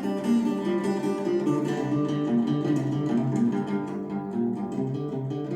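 Guitar music with a run of plucked notes in a steady pattern and no voice, played through a pair of KEF Q150 bookshelf speakers driven by an Aiyima A07 amplifier.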